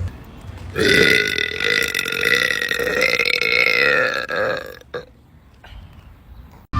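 A woman's long burp, one steady pitched belch lasting nearly four seconds. It starts about a second in, and its pitch rises slightly partway through.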